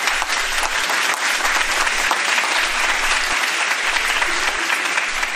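A crowd applauding, many hands clapping at a steady level.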